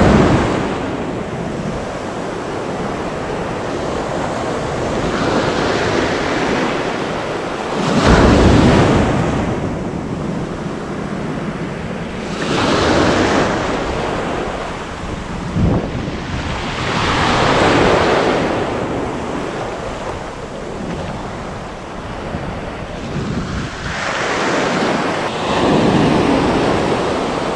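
Sea surf breaking and washing up around the shallows in repeated swells, each surge of rushing water rising and falling over a few seconds, with wind buffeting the microphone.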